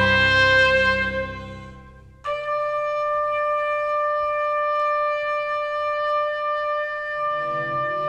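Solo trumpet holding long notes: the first note fades away over about two seconds, then a new note comes in cleanly and is held steady. Low sustained tones from the ensemble come back in underneath near the end.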